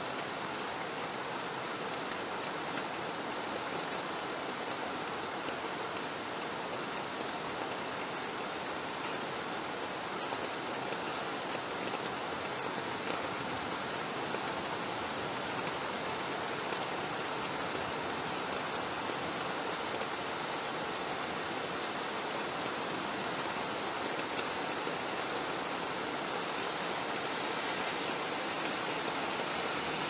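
Steady rain falling, an even unbroken hiss with no single drops or other events standing out.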